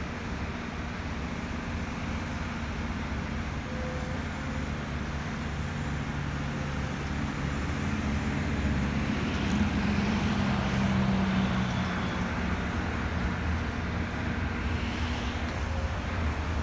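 Diesel engine and hydraulics of a Volvo EC330BLC excavator running under load as it swings and dumps a bucket of dirt into a dump truck, growing louder about halfway through. A car passes close by near the end.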